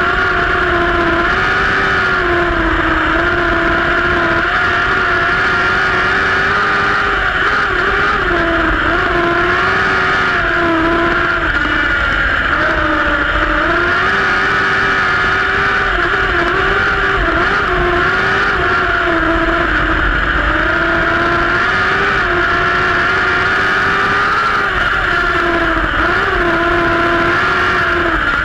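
Compact speedcar's engine running hard at high revs, heard from the car itself, its pitch dipping briefly and climbing back every few seconds as the car goes around the turns of the oval.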